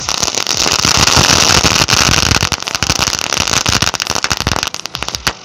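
A ring of small chitput crackers going off in a dense, rapid crackle of pops over the steady hiss of a ground spinner burning in the middle. It thins out near the end.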